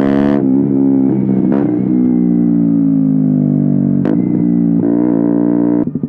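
Single-cylinder four-stroke engine of a KTM Duke 125 on an Akrapovic silencer with a de-cat link pipe, revving hard on the move, its pitch rising and falling with throttle and gear changes. Near the end it drops abruptly to a lumpy, pulsing idle.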